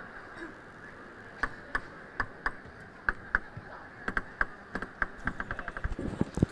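Table tennis ball clicking sharply off bats and table several times, then bouncing in a quick run of clicks that speed up as the ball comes to rest.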